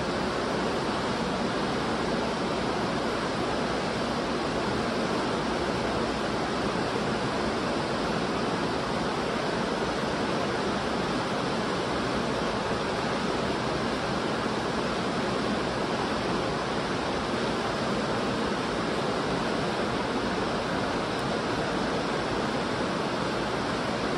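Steady rushing of a creek or river, an even noise that holds level throughout.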